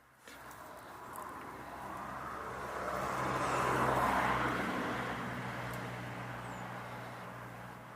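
A vehicle passing by: engine and tyre noise swelling to a peak about halfway through, then fading away.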